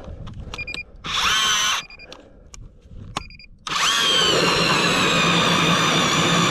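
StrikeMaster Lithium cordless electric ice auger: a short spin-up about a second in, then from just past halfway it runs steadily with a motor whine that sags slightly in pitch as the bit bores down through slushy snow into the ice.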